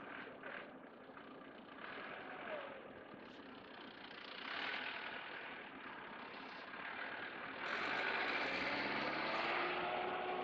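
Engine noise that steps up about eight seconds in, with a rising whine as an engine speeds up.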